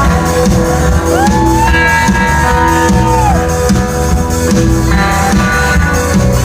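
Live country-rock band playing an instrumental passage with guitar, bass and drums. About a second in, a long high note slides up, holds for about two seconds, then bends down and stops.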